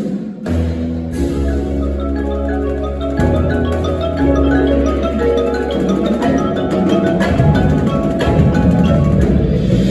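Front-ensemble mallet keyboards, marimbas and vibraphones, playing a fast run of ringing notes over a held low bass note. Toward the end a denser low percussion sound joins in and the music grows louder.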